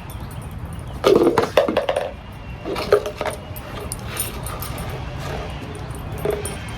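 A dog searching the cups of a shell game: the cups knock and clatter in short irregular bursts, loudest about a second in, with smaller knocks later.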